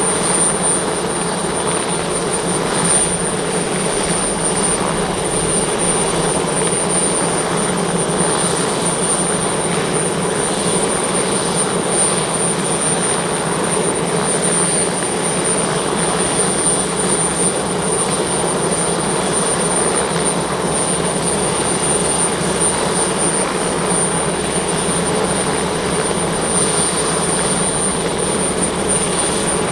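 Sud Aviation Alouette II helicopter running on the ground after startup, its Turbomeca Artouste turboshaft and rotor going at a steady speed. A constant high turbine whine sits over a steady low rumble, with no change in pitch or level.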